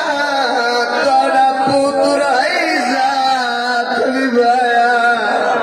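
A man singing a mournful lament over music, his voice gliding through long held notes.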